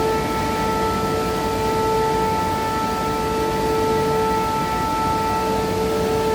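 CNC lathe running with a steady machine whine held at one pitch over a rough mechanical hum.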